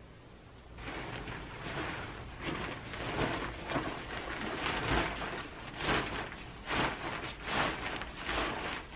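Cotton duvet cover and bedding rustling and flapping as they are handled and shaken while the cover is put on, in repeated swells that start about a second in.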